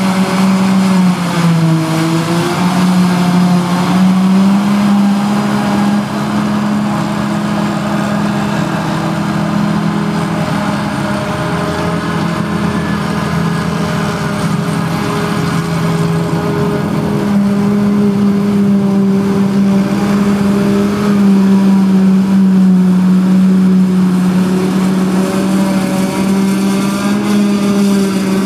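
Claas Jaguar 870 self-propelled forage harvester chopping grass silage and blowing it into a trailer, with a Valtra tractor running alongside: a loud, steady machine drone with a strong hum whose pitch dips briefly a second or two in, over the rushing of the chopped crop.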